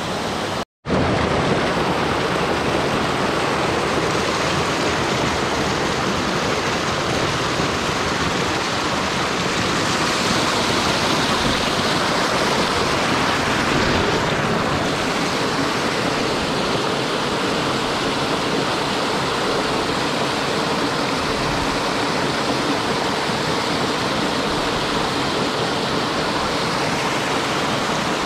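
Steady rush of a mountain stream pouring over small waterfalls and rocks. It cuts out for an instant just under a second in.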